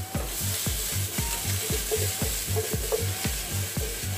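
Potato chunks and courgette sizzling as they fry in oil in a frying pan. The sizzle grows louder a moment in.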